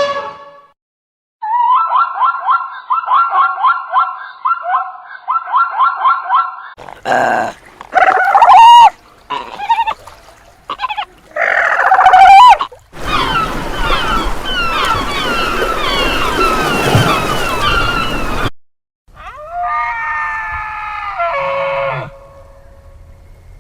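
A series of different animal calls, one clip after another with short gaps between them. First comes a rapid run of repeated pitched notes, then several short separate cries. Next is a stretch of many overlapping small chirps over a rushing noise, and last a single drawn-out call that falls in pitch at its end.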